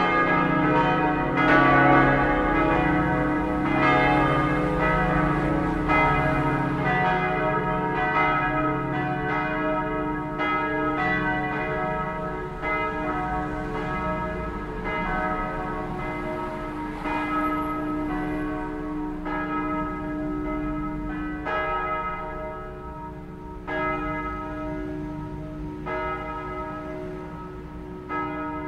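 Five-bell peal of bronze church bells, struck tones D♭, E♭, G♭, A♭ and B♭, ringing in dense overlapping strikes over a deep hum. The deepest hum fades about twelve seconds in, and the strikes grow sparser and quieter toward the end as the peal dies away.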